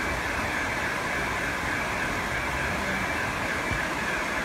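Steady rushing of floodwater running through a flooded town street.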